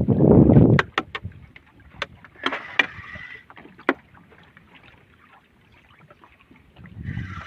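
Sharp knocks and clicks on a small fishing boat, after a loud low rumble of wind and water in the first second, with two short hissy bursts.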